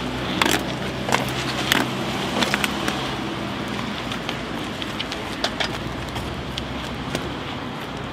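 Steady low hum of road vehicles, with scattered sharp clicks over it, thickest in the first three seconds and sparser after.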